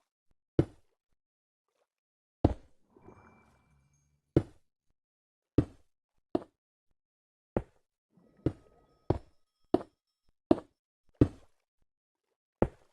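A series of about a dozen sharp knocks or taps at uneven intervals, coming closer together for a few seconds past the middle, with a faint rustling between some of them.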